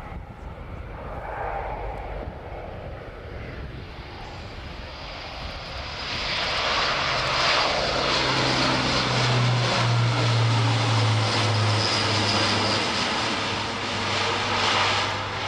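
Airbus A400M Atlas's four TP400-D6 turboprop engines and propellers in flight, growing much louder about six seconds in and then holding a steady low propeller drone under a loud rushing noise.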